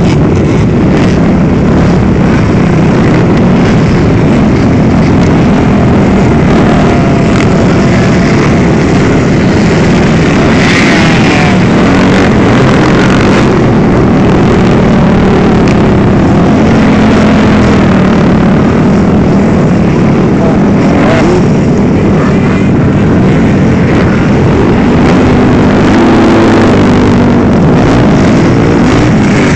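Several motocross dirt bikes revving and passing at close range, their engine notes rising and falling as they ride by. Loud throughout.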